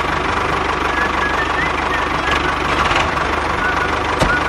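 Tractor engine running steadily with an even low pulse, with short high chirps over it and a single click near the end.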